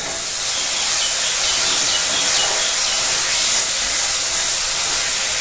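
Masala spice paste with turmeric frying in hot oil in a pan: a steady sizzling hiss that jumps louder right at the start and then holds.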